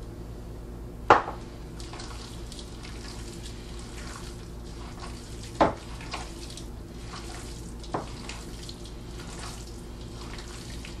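Bare hands squishing and kneading a raw meatloaf mixture of ground beef, egg and oatmeal in a mixing bowl: a run of soft wet squelches, with three sharper, louder squelches spread through it, the first about a second in being the loudest. A steady low hum runs underneath.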